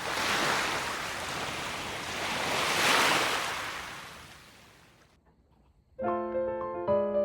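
Typhoon wind and rain: a rushing noise that swells twice, then fades away. Piano music comes in near the end.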